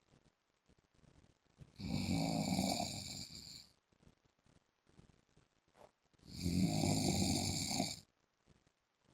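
A man snoring, loud and regular: two long snores, each about two seconds, the first about two seconds in and the second near the end, with near quiet between them.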